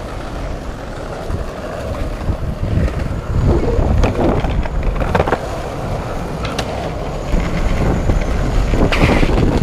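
Skateboard wheels rolling over concrete slabs and flagstone paving, a steady rumble broken by several sharp clacks, mostly in the middle and again near the end, as the wheels cross the joints.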